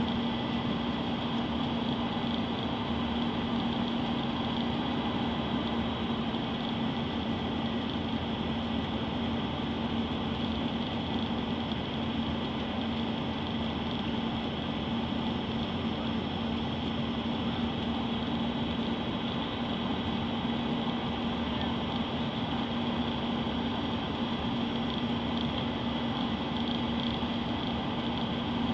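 Cabin noise of an Embraer ERJ-145 regional jet in flight, its rear-mounted Rolls-Royce AE 3007 turbofans giving a steady drone with a low hum and a hiss of airflow, unchanged throughout.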